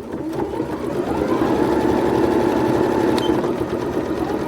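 Home sewing machine running a zigzag stitch through a doubled denim patch on inflatable slide fabric, picking up speed over the first second and then stitching at a steady fast rate. One short click about three seconds in.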